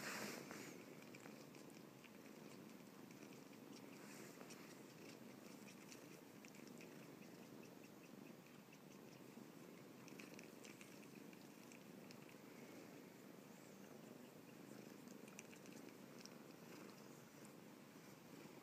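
Kitten purring faintly and steadily.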